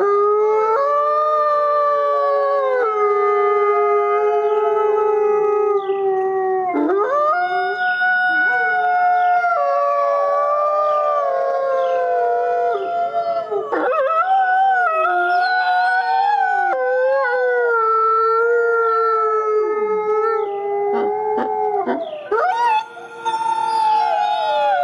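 Gray wolves howling, several long held howls overlapping at different pitches, each sliding up and down and briefly dropping away before rising again.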